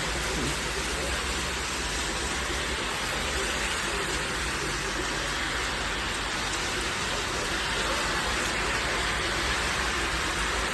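Heavy rain falling steadily in a thunderstorm, an even hiss with no thunder clap or sudden change.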